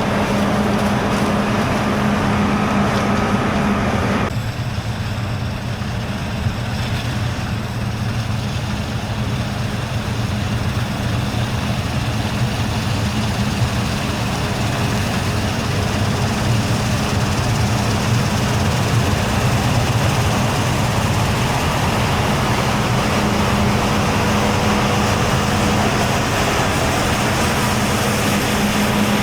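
Heavy diesel farm machinery running steadily with a deep hum. The sound changes abruptly about four seconds in, when a steady droning tone drops out, and a similar tone returns near the end.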